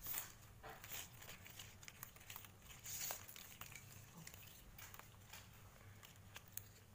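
Faint rustling and small irregular crackles of young coconut-leaf strips being folded, bent and pulled through each other by hand while weaving a ketupat.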